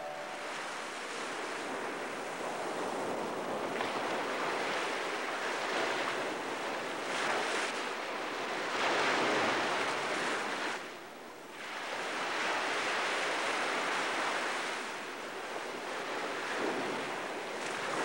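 Ocean surf breaking on a beach, the wash of the waves swelling and easing every few seconds.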